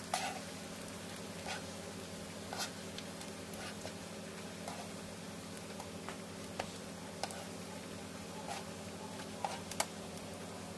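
Steady low hum and even hiss of cooking on a hot griddle, with scattered small pops and clicks from spitting oil and from flatbreads being handled on the pan. The sharpest click comes just after the start, and a pair comes near the end.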